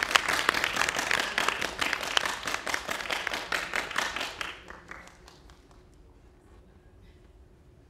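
Audience applauding with many hands clapping, thinning out and dying away about halfway through, leaving only a faint steady room hum.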